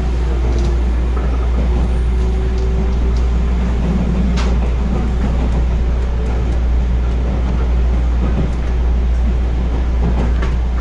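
Running noise inside the carriage of a JR West 221 series electric train: a steady low rumble of wheels on rail, with a faint hum slowly rising in pitch over the first few seconds and a sharp click about four and a half seconds in.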